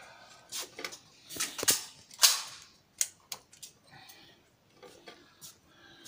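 Sharp metallic clicks of 9 mm cartridges being pressed one by one into a pistol magazine. A few louder sharp cracks with a short echo come in the first half, the loudest a little over two seconds in.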